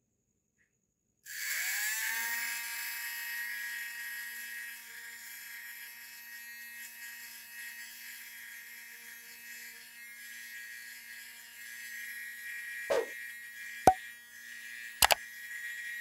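Small DC motor of a homemade plastic-bottle vacuum cleaner switching on about a second in, its whine rising quickly in pitch and then running steadily as it sucks up small scraps. Three sharp clicks near the end.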